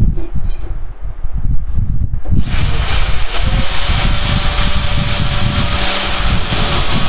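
Yato YT-82185 portable band saw switched on about two seconds in, its motor and blade starting with a brief rising whine and then running steadily with a dense mechanical noise as the blade is lowered to cut a PVC pipe. Before it starts there is only a low handling rumble and a few light clicks.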